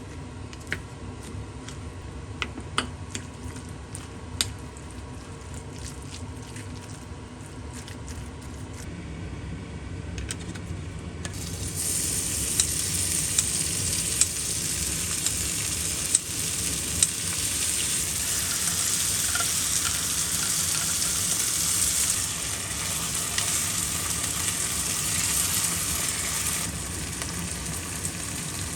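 Food sizzling in a frying pan, with scattered clicks of a utensil against the pan. The sizzle jumps to a much louder, denser hiss about a third of the way through.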